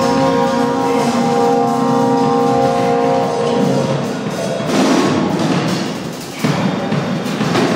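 Live experimental noise and drone music: a droning layer of held tones fades out after about three seconds. About five seconds in comes a swell of harsh noise, then a brief dip and a sudden loud hit near the end.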